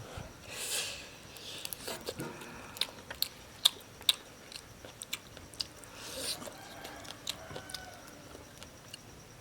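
A person eating: chewing and biting, with a run of sharp crunchy clicks and a couple of short breathy noises.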